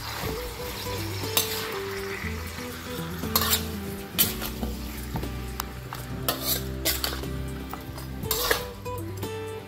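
Metal ladle scraping and clinking against a steel wok as pork hock slices with onion are stirred and fried in hot oil, with sizzling under it. The scrapes come irregularly, several times.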